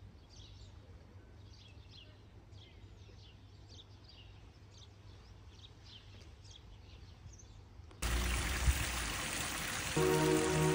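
Small birds chirping, several calls a second, over a low steady outdoor rumble. About eight seconds in, the sound cuts abruptly to a loud rushing water-like hiss, and music comes in near the end.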